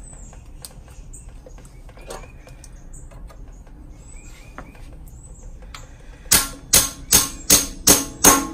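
Hammer blows on a steel wheel stud, driving bread into the crankshaft's pilot bore to force out a stuck pilot bushing. Seven sharp, ringing metal strikes come in a quick even run, about two and a half a second, starting about six seconds in. Before them there are only faint clicks and small chirps.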